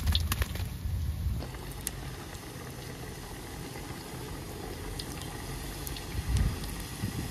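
Hot vegetable oil sizzling and bubbling steadily in a pot as samosas deep-fry, with faint crackles. The first second or so is louder, with a low rumble and sharper crackling clicks.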